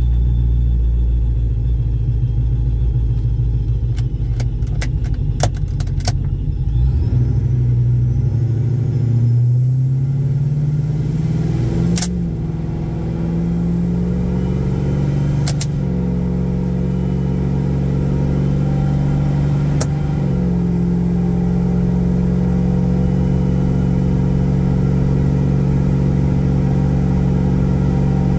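Supercharged RAM R/T pickup's V8 running low and heavy while stopped, with a few sharp clicks. It then pulls away, rising in pitch, and the automatic shifts up three times, about a third, halfway and two-thirds of the way through. After the last shift it settles into a steady cruise.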